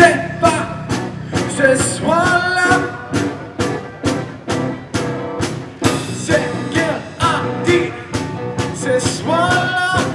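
A live rock band playing: a man sings lead over electric and acoustic guitars, with a drum kit keeping a steady beat.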